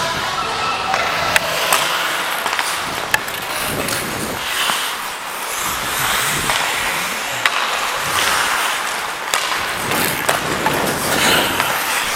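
Ice-hockey skate blades scraping and carving on the ice during play, a steady rasping hiss, with scattered sharp clacks of sticks and puck.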